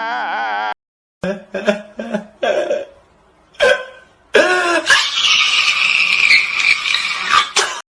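A person crying for a meme sound clip: a few short, broken sobs, then a long, loud wailing cry that breaks off just before the end.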